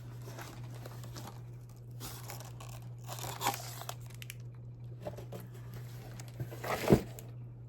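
A cardboard box being opened and its packaging rustled and torn, in scattered faint scrapes, with one sharp knock about seven seconds in.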